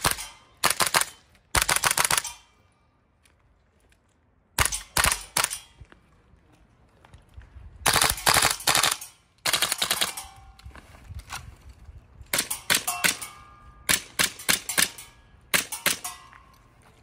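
Marksman K1A gas blowback airsoft rifle firing about nine short full-auto bursts, each a quick string of sharp cracks as the gas-driven bolt cycles, with pauses between bursts.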